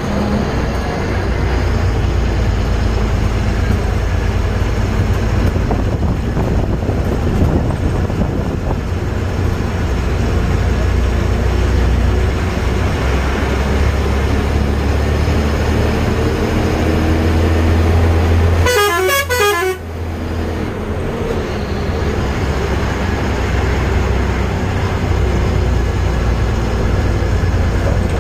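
A road vehicle driving on a hill road: a steady low engine and road rumble. About nineteen seconds in a short warbling sound lasts about a second.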